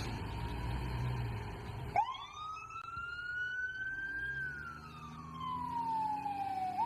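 Fire engine siren in a slow wail: it cuts in about two seconds in, climbs in pitch, falls slowly, then starts climbing again near the end. The low rumble of the truck's engine runs underneath.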